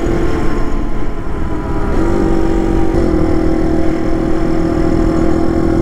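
Dual-sport motorcycle engine running at a steady cruising speed, heard from the rider's own bike, with wind rushing over the microphone. A slight change in engine pitch comes about two seconds in.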